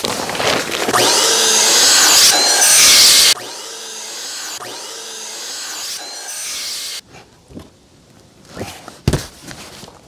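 Small electric air pump inflating an air mattress: loud for a couple of seconds, then quieter and steady, cutting off suddenly about seven seconds in.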